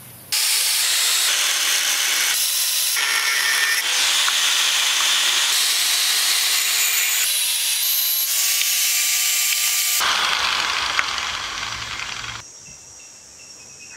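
Angle grinder with an abrasive disc grinding a thin steel rod: a loud, high grinding noise with a faint motor whine under it, changing abruptly a few times where the footage is cut. It stops about twelve and a half seconds in.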